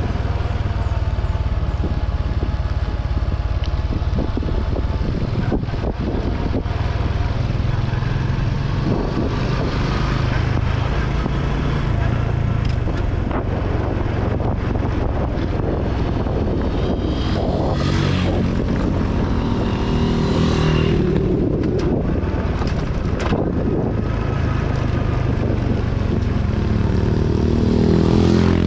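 Honda XRM 125 Fi's single-cylinder four-stroke engine running steadily as the motorcycle rides downhill, its pitch shifting with speed. Near the end a rising engine note grows louder as another motorcycle comes close.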